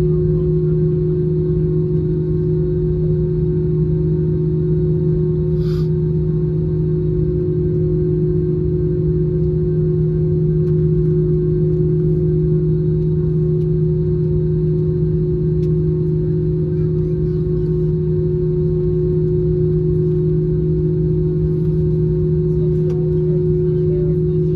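Airliner cabin noise of an Airbus A321 taxiing with its CFM56 engines at idle: a steady hum holding two low tones over a low rumble.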